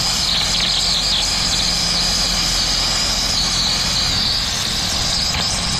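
Steady mechanical drone: a low hum under an even, high hiss that does not change.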